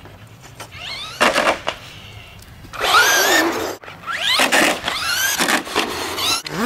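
Electric RC car motor whining up in repeated throttle bursts, its pitch rising sharply with each punch, mixed with the rush of tyres spinning. There is a short burst about a second in, then longer, louder ones from about three seconds on.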